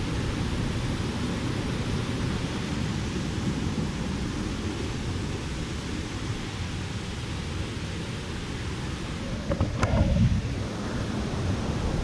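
Steady rush of water from a large waterfall, with low wind rumble on the microphone. A brief bump about ten seconds in.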